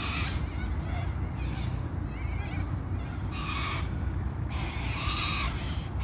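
White cockatoos screeching. There are three harsh calls, one right at the start, one about three and a half seconds in and a longer one near five seconds, with a few softer squeaky notes in between, over a steady low background rumble.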